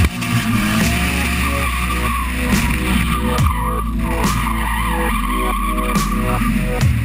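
Drift car sliding sideways on the throttle, its engine running at high revs and its rear tyres squealing in a wavering screech through most of the slide.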